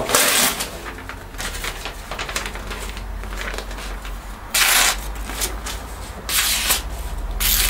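A freshly made sharp knife slicing through very thin paper: several short, hissing cutting strokes, with the paper rustling and crackling between them.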